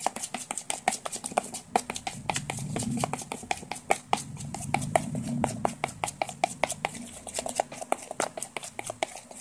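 Metal spoon stirring a thick glue-and-foam slime mixture in a plastic bowl: a rapid, irregular run of clicks, several a second.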